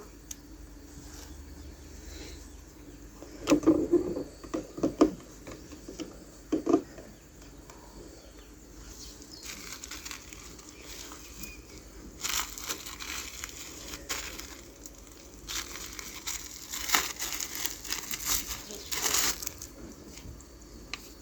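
Plastic packaging crinkling and rustling as toy pieces are unwrapped, with a few light knocks of small parts being handled in the first seconds.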